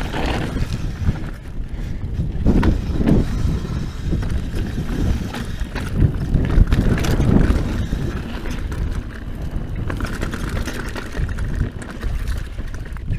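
Scott Genius full-suspension mountain bike riding down a rocky dirt singletrack: tyres rolling and crunching over stones, the bike clattering and knocking over bumps, with wind rumbling on the microphone.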